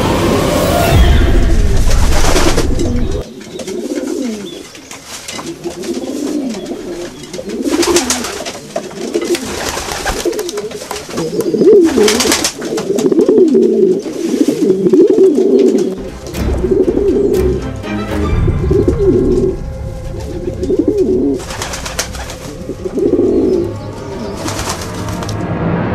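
Pigeons cooing over and over, low repeated coos, with a few short bursts of rustling noise.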